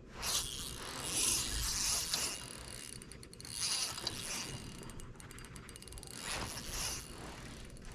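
Fishing reel being cranked as a hooked fish is reeled in, its mechanism ratcheting in quick ticking runs that come and go in uneven spells.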